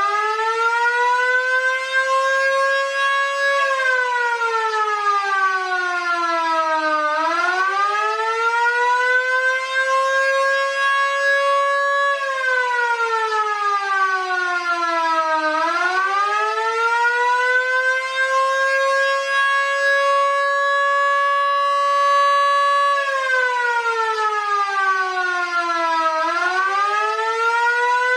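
A Vixen Horns VXS-1450 siren and a miniature Fedelcode Model 7 siren sound together on an attack signal, switched on and off as one. They hold a steady high wail, sag in pitch when the power is cut, then wind back up when it returns, three times over.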